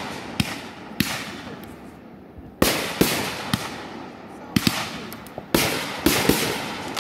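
Aerial fireworks shells bursting overhead: a run of sharp bangs about every half second to second, each trailing off in an echoing rumble.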